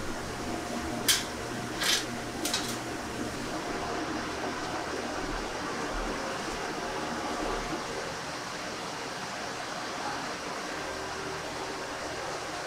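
Steady fan-like rushing of kitchen ventilation, with three sharp knocks about a second in and over the next second and a half.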